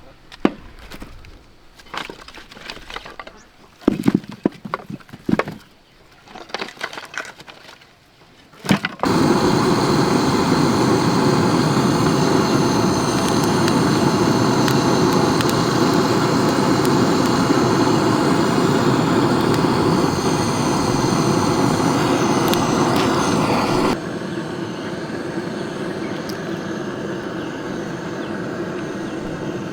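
Scattered sharp knocks and cracks. About nine seconds in, a loud steady motor noise starts suddenly and runs on, dropping in level near the end.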